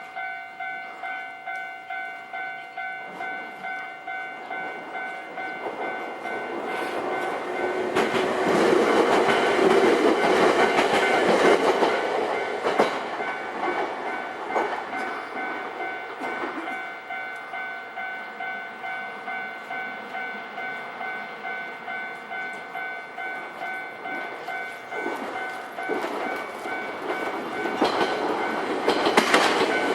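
Level-crossing warning bell ringing about twice a second throughout, while a Nankai Electric Railway train runs over the crossing, its wheels clattering loudest about eight to twelve seconds in. Another train comes on near the end.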